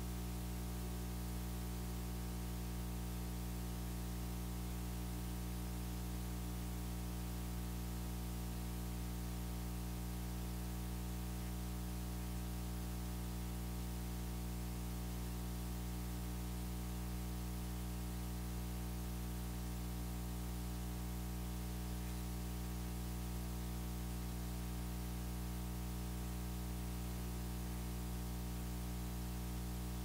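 Steady electrical hum and hiss from the recording chain, unchanging throughout, with faint music barely showing underneath.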